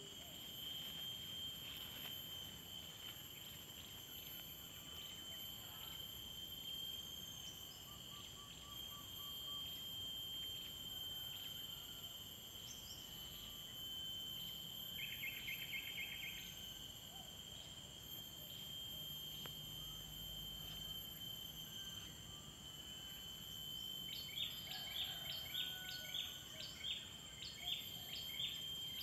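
Outdoor insect drone: several steady high-pitched tones from calling insects, with a short trill about halfway through and a run of quick repeated bird-like chirps near the end.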